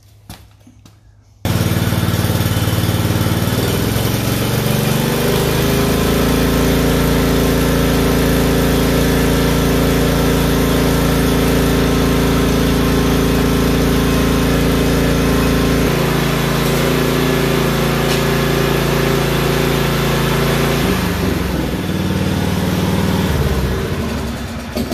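Cub Cadet CC30H riding mower's engine starting about a second and a half in, rising in pitch over the next few seconds, then running steadily after a fresh oil and filter change to circulate the new oil. It changes tone about two-thirds of the way through, then winds down and shuts off near the end.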